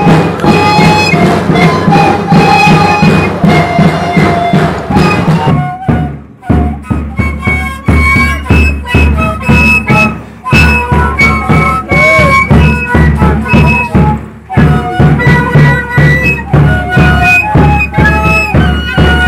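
Andean wooden duct flutes playing a reedy, high melody together, with a steady drum beat. After a short drop about six seconds in, the drum beat is heavy.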